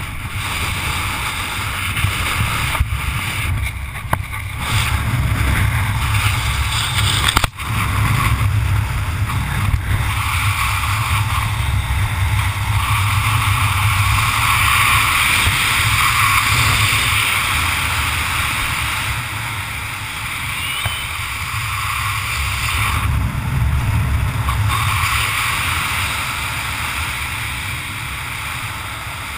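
Wind buffeting a GoPro's microphone during a descent under an open parachute: a steady low rumble with a rushing hiss, broken by a brief dip about seven and a half seconds in.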